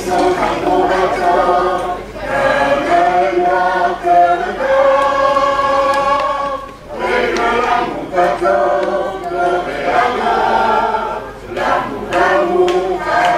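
A children's choir singing, in phrases of a few seconds with short pauses between them.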